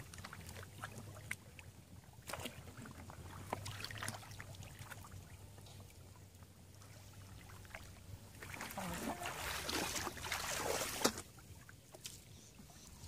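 Shallow muddy water splashing and sloshing as hands grope through a flooded rice paddy and legs wade in it, with scattered small splashes and a busier stretch of splashing about two-thirds of the way through.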